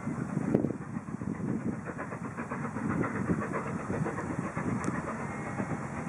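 A steam locomotive working a train in the distance, heard faintly under gusty wind rumbling on the microphone.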